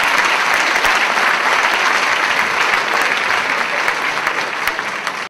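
Audience applauding: a dense, steady clapping that eases slightly and then cuts off abruptly at the end.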